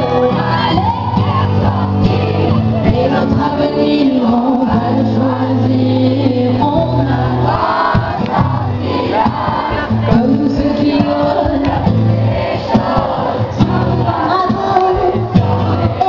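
Live pop song: a female singer with acoustic guitar accompaniment, with the audience singing along, recorded loud on a phone in the crowd.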